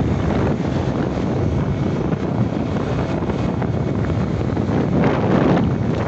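Wind buffeting the microphone while riding a motorcycle at speed: a loud, steady rush, a little stronger about five seconds in.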